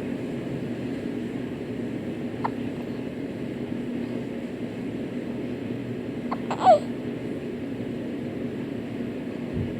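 A baby hiccuping twice, each hiccup a short squeak like a rubber chicken: a faint one about two and a half seconds in, and a louder one that falls in pitch about four seconds later. A steady low hum runs underneath.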